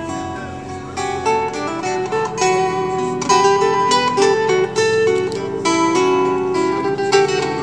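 An acoustic guitar played live: a continuous run of plucked notes shifting from chord to chord.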